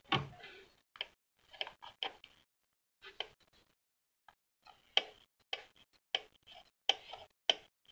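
Irregular light clicks and taps of a small plastic gear and metal parts being handled and seated on their shafts in the tension arm mechanism of an Akai GX-747 reel-to-reel tape deck, with a quiet spell around the middle.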